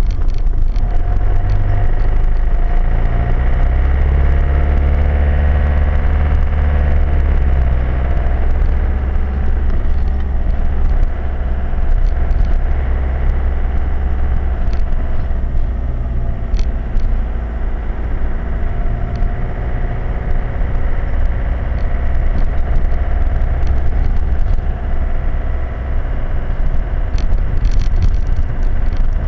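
Hymer 564 motorhome driving: engine and road rumble heard from inside the cab, the engine's pitch rising and falling a few seconds in, with small rattles and clicks throughout.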